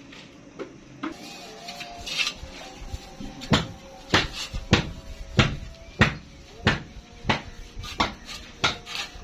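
Thin metal pizza pan knocking against a concrete counter in a steady rhythm, about one knock every two-thirds of a second, as a hand rubs oil around it in circles. Before that, a few light clicks of clay bowls.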